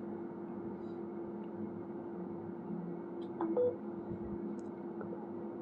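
A steady low hum over faint hiss, with two short faint notes, one a step higher than the other, about three and a half seconds in.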